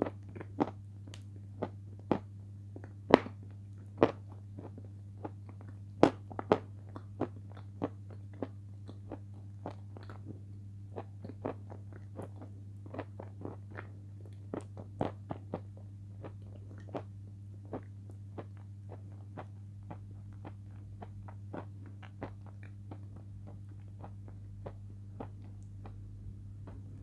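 Crunchy chips dipped in a thick cream being chewed close up: a run of sharp crunches, loudest in the first eight seconds and growing smaller and softer as the chips are chewed down, over a steady low hum.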